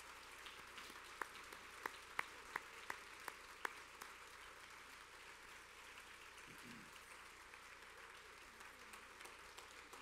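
Audience applauding, fairly faint, with a few sharper single claps standing out in the first few seconds.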